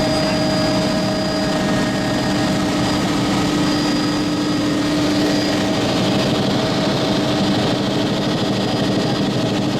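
Helicopter engine and rotor noise, a loud steady drone with a constant hum through it.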